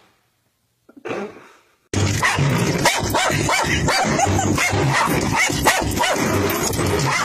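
A dog barking and yipping rapidly and excitedly inside a moving car, over a loud steady rushing noise. It starts suddenly about two seconds in, after near silence.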